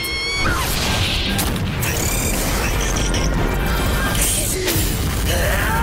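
Battle sound effects from an anime fight with a monster, with crashes, blasts and a heavy low rumble over background action music.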